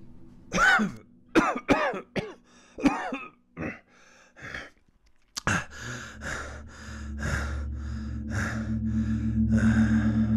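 A dying man coughing and choking in short fits, then breathing hard in quick, ragged breaths about twice a second.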